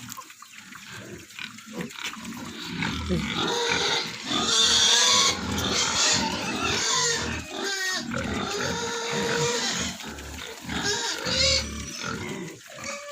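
Pigs squealing, with several loud, shrill squeals that are loudest about four to six seconds in.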